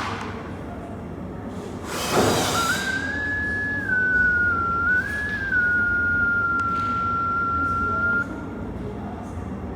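Tanbos S5000 cable tracer receiver sounding a steady electronic tone that steps up and down in pitch a few times, then cuts off about eight seconds in. A short rustle comes about two seconds in.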